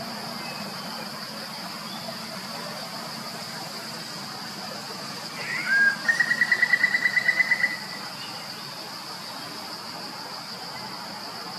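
Insects droning steadily at a high pitch, and about halfway through a bird gives one short note, then a rapid trill of over a dozen even notes lasting about two seconds.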